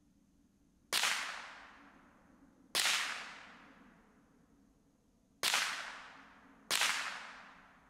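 Four shots from a Ruger 10/22 .22 rimfire rifle at uneven intervals of one to three seconds, the first about a second in. Each is a sharp crack that trails off over about a second.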